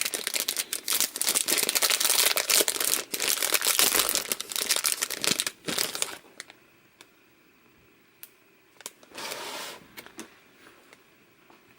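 Packaging crinkling and rustling with some tearing while a doll is worked out of its box, busy for about six seconds, then only a few small clicks and one short rustle.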